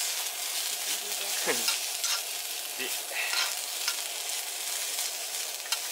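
Diced onions sizzling as they are sautéed in a frying pan, with a spoon scraping across the pan in short strokes at irregular intervals as they are stirred.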